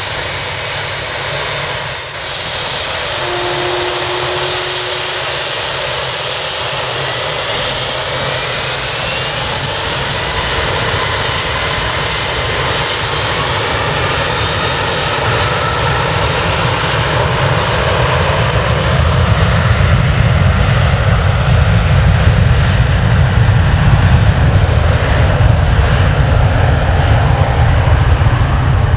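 Airliner engines passing close: a loud, continuous roar with whining tones that slowly fall in pitch. A deep rumble swells over the last ten seconds as the sound grows louder.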